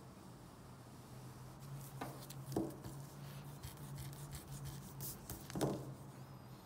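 Pencil scratching across paper in short drawing strokes on a wooden tabletop, with a few louder taps among them, over a low steady hum.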